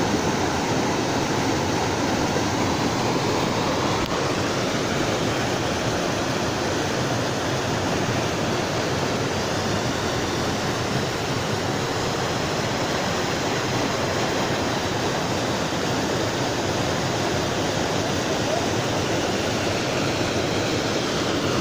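Water rushing down a small rocky cascade into a pool: a steady, even rush of whitewater that keeps the same level throughout.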